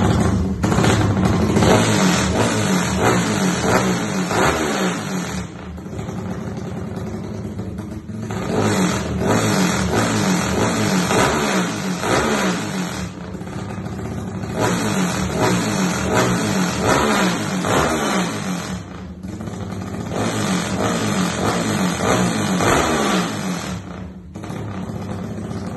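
Modified Yamaha Y15ZR / MX King 150 single-cylinder motorcycle with an aftermarket exhaust, revved repeatedly and dropping back between blips, tuned for a rumbling, lumpy idle.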